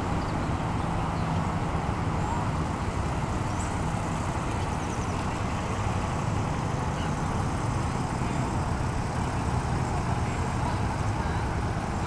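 Steady road traffic noise: a continuous hiss with a low hum underneath.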